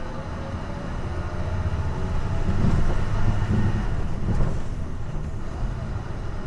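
Diesel engine of a Hino Blue Ribbon city bus running hard under load, heard from inside the cabin as a dense, low rumble. It grows louder about two seconds in and eases a little after about four and a half seconds.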